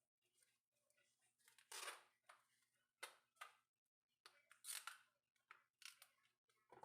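Faint, short scraping and crunching strokes, about a dozen, with the two loudest about 2 s and 5 s in: hand tools working on an iPhone 13's glass back and housing.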